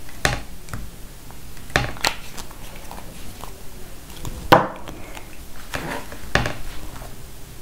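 Light plastic clicks and knocks, about six of them with the loudest about four and a half seconds in, from handling a small ink re-inker bottle: putting a drop of ink onto an acrylic block and setting the bottle and a water brush pen down on the craft table.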